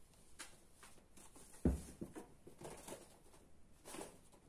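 Ragdoll kittens play-fighting on a fabric sheet over carpet: soft scuffles and rustles, with one dull thump about a second and a half in.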